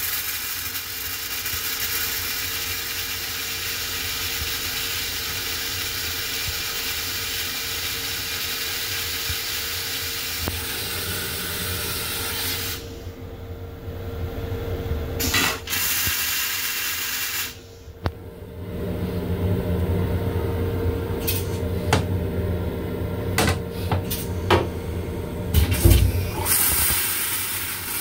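M7 railcar toilet running its flush cycle: a steady hiss of water with a steady hum, which cuts off suddenly about 13 seconds in. After that comes a low rumble with scattered clicks and knocks, and a short hiss near the end.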